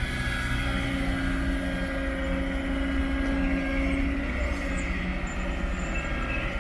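Kobelco SK200 hydraulic excavator's diesel engine running under load as the machine digs and lifts a bucket of soil. A steady tone holds over the engine noise and drops away about four seconds in.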